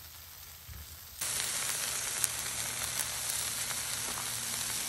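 Food sizzling on a hot flat-top griddle: baguette toasts topped with steak, tomatoes and melting cheese frying, a steady hiss with small crackles. It starts abruptly about a second in, after a quieter moment.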